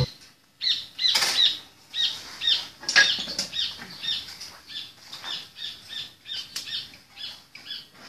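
A small bird chirping over and over, short falling chirps about twice a second, with scattered clicks and light knocks of tools being handled on the workbench.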